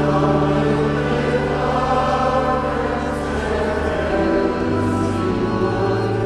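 Music: a choir singing long held chords, with the lowest note stepping down about two thirds of the way through.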